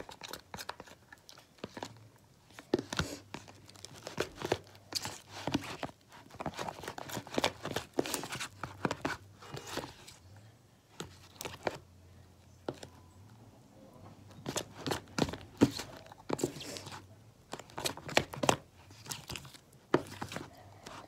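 A spoon stirring glue and shaving cream together in a bowl while mixing fluffy slime: an uneven run of short scrapes and taps.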